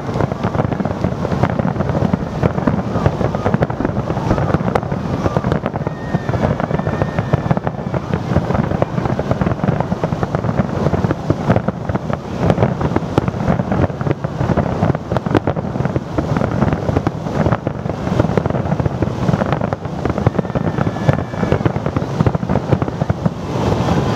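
Massed aerial fireworks: many shells bursting at once in a dense, unbroken barrage of overlapping bangs and crackle.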